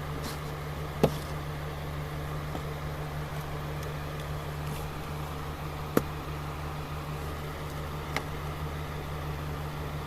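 A steady low electrical hum with three sharp clicks: one about a second in, a louder one near the middle and a fainter one later.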